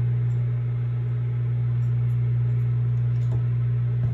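A loud, steady low electrical hum, with a couple of faint knocks near the end.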